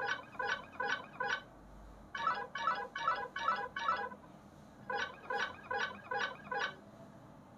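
Nothing Phone 2 playing a Glyph ringtone: runs of five quick electronic chirps, about two and a half a second, in three groups with short pauses between them.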